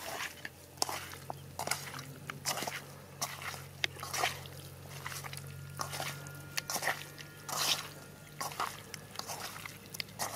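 Hand squelching and slapping raw chicken pieces in a wet spice marinade inside a steel kadai, in short irregular strokes. A low steady hum sits under it and stops near the end.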